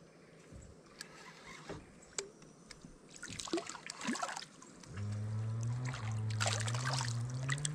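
A hooked fish splashing at the water's surface beside the boat as it is played in, in two bouts of splashing. A low steady hum comes in about five seconds in and shifts pitch in small steps.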